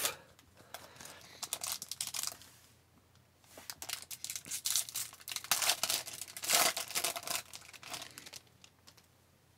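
The foil wrapper of an Upper Deck Allure hockey card pack is crinkled and torn open by hand, in bursts of rustling and tearing. The loudest tearing comes a little past the middle.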